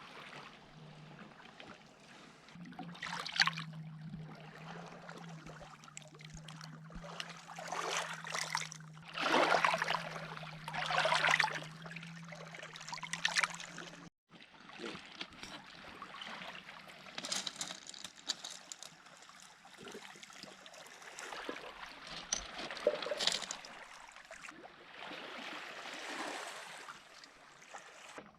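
Water lapping and splashing, coming in repeated swells of a second or two each. A steady low hum runs underneath until it stops suddenly about halfway through.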